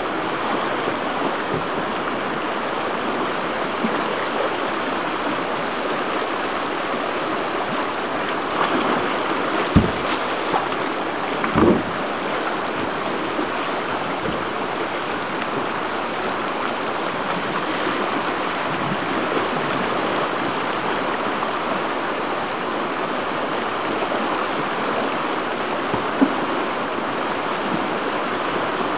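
Whitewater rapid rushing steadily, with two brief low thumps near the middle.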